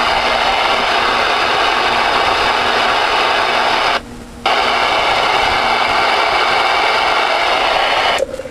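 Ten-meter radio receiver static: a loud, steady hiss of an open channel with no one transmitting, from the Voyage VR-9000's speaker. The hiss drops out for about half a second about four seconds in and falls away again near the end.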